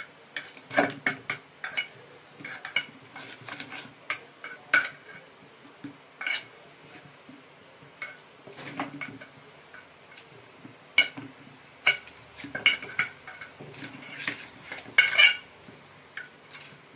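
Kitchen utensils and dishes clinking and clattering in irregular sharp knocks, a few of them loud, with a cluster of clinks near the end.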